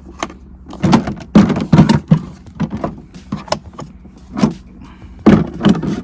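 Handling noise from something being pried open: an irregular series of short knocks and clacks, about a dozen in all, with rustling between them.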